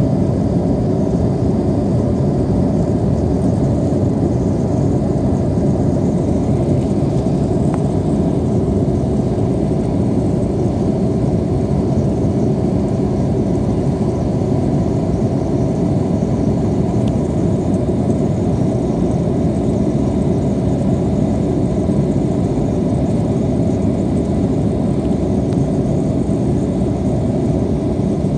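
Airliner engines and rushing air heard from inside the passenger cabin during takeoff and climb: a loud, steady low rumble that holds unchanged throughout.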